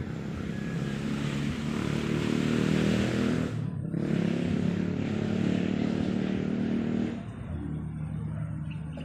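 A motor vehicle engine running loud and close, with a brief break about three and a half seconds in, then dropping away about seven seconds in.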